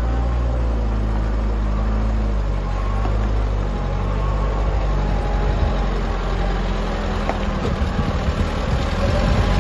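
Mitsubishi Colt Diesel dump truck's diesel engine pulling up a steep gravel hill: a steady low drone that turns rougher and slightly louder in the last few seconds as the truck comes close.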